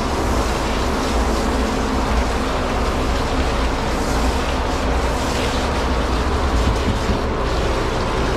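Dog blow dryer running steadily, a loud, even motor-and-air blast with a low hum.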